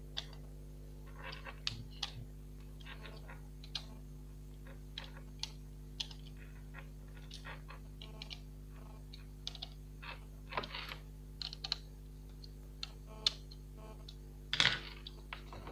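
Small irregular clicks and taps of a screwdriver and fingers on the screws of a laptop motherboard's heatsink as they are checked for tightness, a few louder ones near the end, over a steady low hum.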